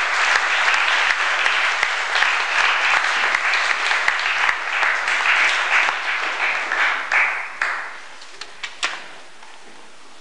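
Audience applauding, the dense clapping dying away about eight seconds in, with a few last single claps.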